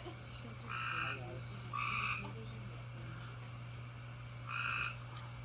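A frog calling: three short two-toned notes, two about a second apart and one more after a pause of about two seconds, over a steady low hum.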